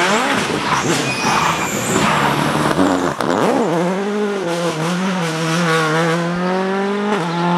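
Subaru Impreza rally car's turbocharged flat-four engine at full throttle as the car comes past close by and accelerates away, the engine note climbing steadily with an upshift about seven seconds in.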